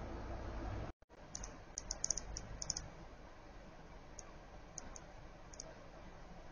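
Quick, very high-pitched chip calls of a hummingbird: a rapid cluster of about a dozen, then a few scattered single chips, over a steady faint hiss. The sound drops out briefly about a second in.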